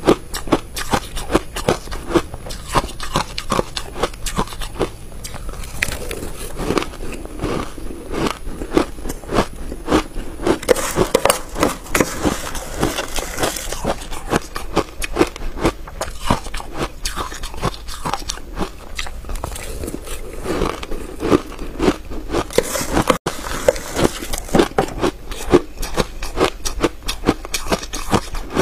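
Close-miked crunching and chewing of frozen ice coated in matcha powder: a dense, steady run of crisp, crackly crunches as mouthfuls of ice are bitten and ground between the teeth.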